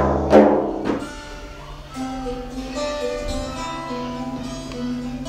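A couple of deep drum strikes in the first second, then a long-necked saz lute being plucked, playing a melody over a steady low note.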